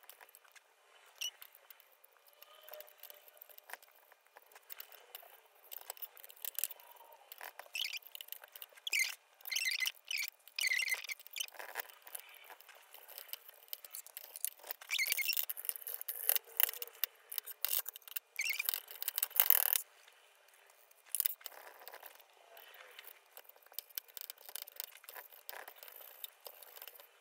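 A cloth scrubbing and wiping dried watercolor paint out of a vintage Pelikan 66/12 metal paint tin, in irregular short strokes with squeaks of cloth on metal. The scrubbing is louder and denser for a few seconds about two-thirds of the way through.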